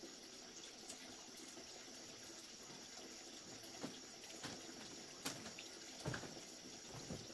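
Water sloshing and pouring as a cooking pot is washed out, with a few light knocks of the pot.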